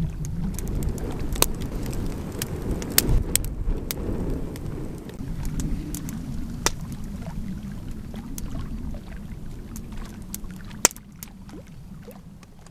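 Small waves lapping against a rocky lakeshore, a steady low wash with scattered sharp clicks and pops; the sound drops away about eleven seconds in.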